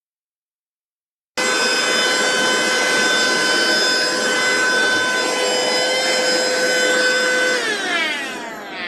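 Small motor of a cordless handheld vacuum cleaner running with a steady high whine over rushing air. The sound cuts in abruptly after a second and a half of silence. Near the end the motor is switched off and its whine slides down in pitch as it spins down.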